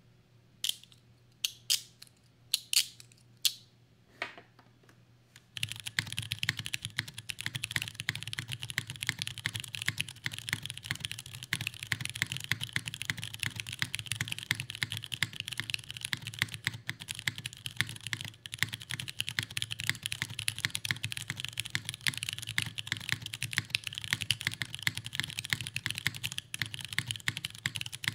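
Mechanical keyboard with broken-in Cherry MX Brown tactile switches (about 1.2 million actuations), an aluminium plate, an O-ring mount and no foam, being typed on. A few separate clicks come first, then from about five seconds in continuous fast typing.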